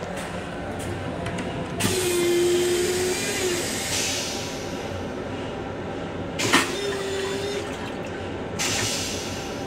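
Stainless-steel toilet on an M7 railcar flushing. Rinse water rushes into the bowl with a steady hum about two seconds in. About six and a half seconds in there is a sharp pop followed by another short hum, and a last rush of water comes near the end, over a steady low rumble from the train.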